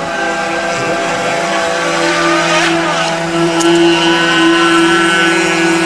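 Radio-controlled model speedboats running flat out, their small two-stroke engines whining at high revs, several pitches at once, growing louder as the boats come closer.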